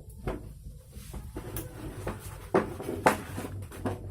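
A series of sharp clicks and knocks from tools and small metal parts being handled, the two loudest about two and a half and three seconds in.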